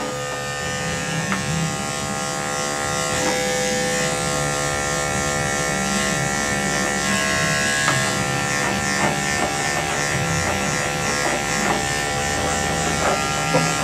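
Electric pet clippers running with a steady motor hum, shaving a long-haired cat's belly with gentle strokes.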